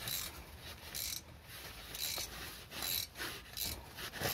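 Hand ratchet wrench clicking in short bursts, about one a second, as a loosened bolt on the front brake caliper is backed out.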